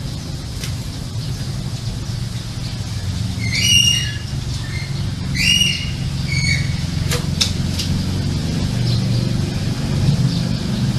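A rooster and a dog scuffling, with three short, high, sharp cries at about four, five and a half and six and a half seconds in. They sound like squawks or yelps from the fight. A steady low hum runs underneath.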